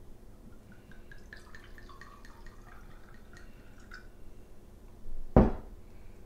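A glass wine bottle set down on a countertop with one loud knock about five seconds in, after a few seconds of faint light ticks and drip-like sounds.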